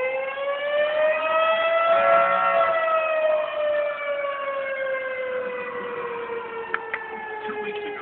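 Outdoor emergency warning siren wailing, its pitch rising for the first couple of seconds and then falling slowly. Two short clicks sound about three-quarters of the way through.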